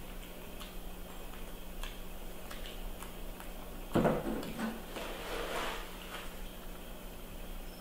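A baby macaque handling food and a plastic baby bottle on a wooden tabletop: scattered faint clicks, then a sharp thump on the table about four seconds in as it grabs the bottle, followed by a second or so of rustling as it handles and lifts the bottle.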